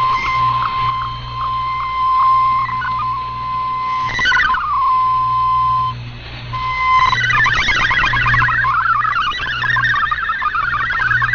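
Shortwave digital-mode data signal from a radio receiver. A steady tone near 1 kHz with short pips comes first. About four seconds in there is a quick falling sweep and the steady tone again. From about seven seconds on a dense, rapidly hopping warble of many tones sends the data, over a low steady hum.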